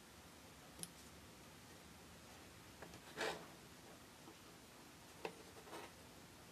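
Faint handling sounds of a small miniature dollhouse model being moved by hand on a cutting mat: a light tap about a second in, a short scrape or rustle a little past the middle, and two soft clicks near the end.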